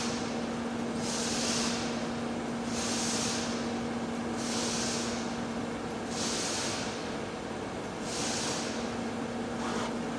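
TIG welding on heavy-wall pipe: a steady electrical hum from the arc and welding set, with a hiss that swells and fades about every second and a half.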